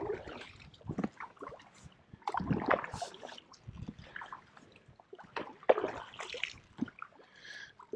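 Kayak paddle blades dipping and pulling through lake water, making irregular splashes, drips and sloshes.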